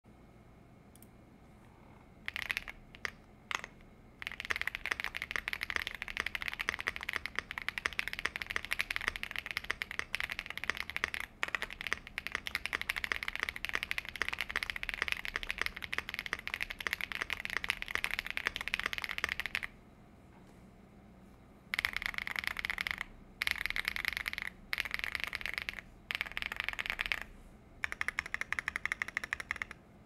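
Stock Rainy75 Pro mechanical keyboard with Cocoa switches being typed on fast, its keystrokes clicking in a dense, rapid run. A few single key presses come first; the typing pauses about two-thirds of the way in, then resumes in shorter runs.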